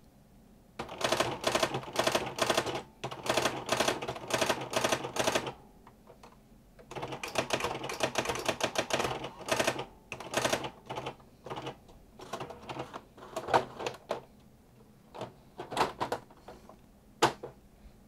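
Brother electronic daisy wheel typewriter printing in bold mode: runs of rapid mechanical clatter as the print hammer strikes the daisy wheel, in two long bursts and then shorter scattered bursts and single strikes.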